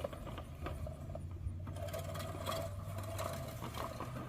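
Craftsman manual push reel mower being pushed through grass, its spinning reel blades whirring with a steady run of small clicks as they cut.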